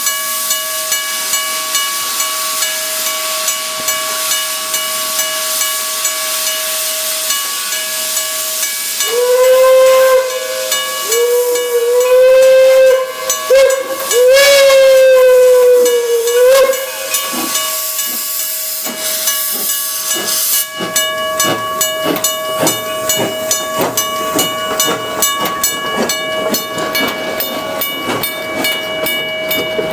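1897 Baldwin steam locomotive hissing steam and sounding its whistle in a series of blasts, the longest about two and a half seconds, each one sliding up in pitch as it starts and sagging as it stops. About two-thirds of the way through a fast, regular beat sets in.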